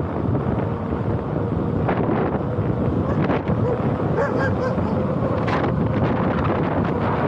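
Wind buffeting the microphone as an e-bike rolls fast downhill, with a faint steady hum underneath.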